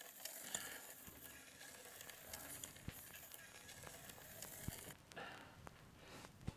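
Vinyl record surface noise as the stylus rides the spinning disc: a faint hiss with scattered crackles and a few sharper pops.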